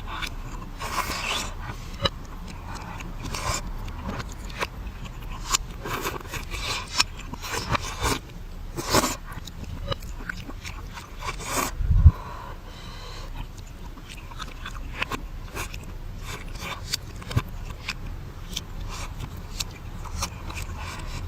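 Close-miked mukbang eating sounds played backwards: irregular crunching, chewing and mouth clicks, with one heavier knock about twelve seconds in.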